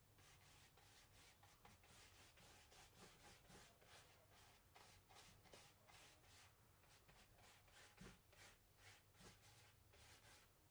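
Faint, quick back-and-forth strokes of a round chalk-paint brush scrubbing watered-down chalk paint into upholstery fabric, several strokes a second.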